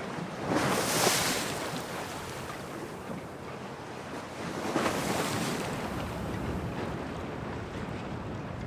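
Storm waves washing and breaking against the harbour under steady wind, with two louder surges of splash, about a second in and again about five seconds in.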